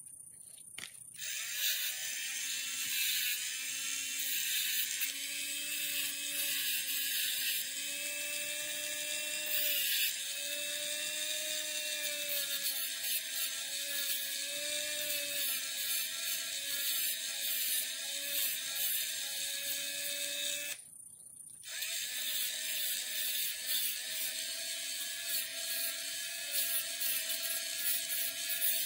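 Dremel rotary tool with a small sanding drum grinding a copper sword guard: a steady motor whine with a grinding hiss, wavering slightly as the work is pressed on. It starts about a second in and cuts out briefly about three-quarters of the way through before running again.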